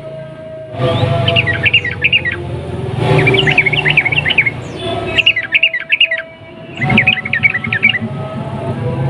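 Yellow-vented bulbul (trucukan) singing in four fast, bubbling phrases of rapid chirping notes, each about a second long, with short pauses between them.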